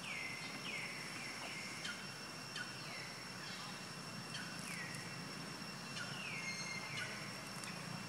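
A series of short, high animal calls, each falling quickly in pitch, repeated irregularly about once or twice a second. Under them runs a steady high hum like insects, in an outdoor natural setting.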